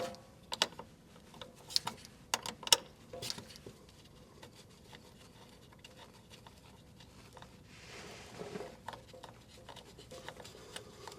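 Hands and tools working a strap-mounted propane gas line free: a run of sharp clicks and taps over the first three seconds, then faint scattered ticks and a soft rubbing scrape about eight seconds in.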